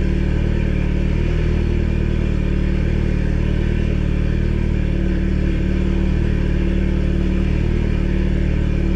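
Seat Leon Cupra's 2.0 TFSI turbocharged four-cylinder engine idling steadily, cold. It runs smoothly with no cylinder 1 misfire after new coils, spark plugs and a replacement injector.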